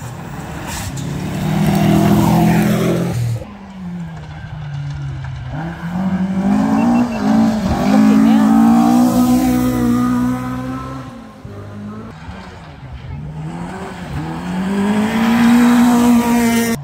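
Rally cars passing one at a time on a gravel forest stage: three passes, each engine note rising as the car nears and revving hard through the bend, with the hiss of tyres on loose gravel.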